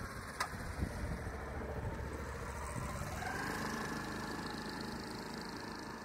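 A motor vehicle's engine running, rising in pitch about three seconds in, with one sharp click near the start.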